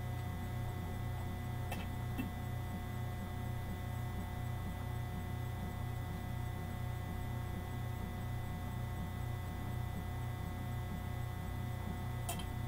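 Steady electrical hum, low and unchanging, with a few faint clicks near the start and near the end.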